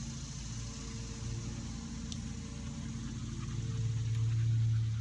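A motor running steadily with a low hum, growing a little louder about four seconds in.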